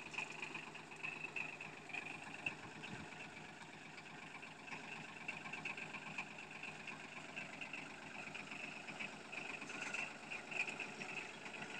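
Yanmar KE50 compact tractor's engine running steadily at low speed as the tractor creeps up a loading ramp.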